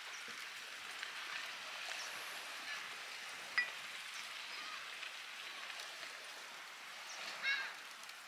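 Outdoor ambience: a steady hiss with a few short, high-pitched calls, the clearest one near the end, and a sharp click about a third of the way in.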